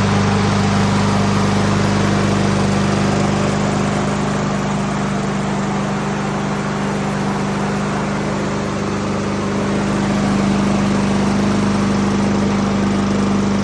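Honda HRX217 lawnmower's single-cylinder four-stroke engine running steadily at a fixed throttle, warming up the oil before an oil change.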